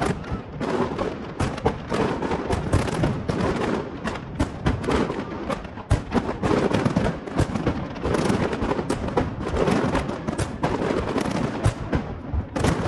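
Fireworks display going off in a continuous barrage: many sharp bangs and crackling bursts, closely packed and overlapping.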